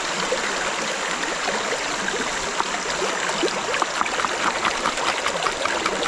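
River water running steadily, with quick, irregular taps from about two and a half seconds in as a sharp knife chops garlic fine.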